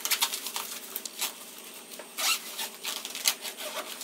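Zipper of a fabric chess carry bag being pulled shut in several short strokes, the longest about two seconds in, with cloth rubbing and handling clicks in between.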